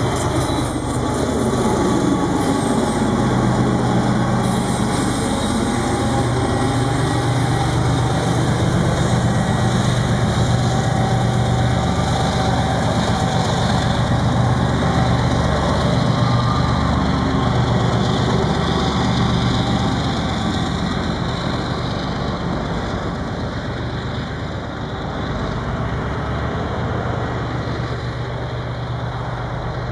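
General Electric diesel locomotive engine running steadily under load, a low drone, with the rumble of freight cars on the rails. In the first few seconds the engine's pitch falls away as the train passes.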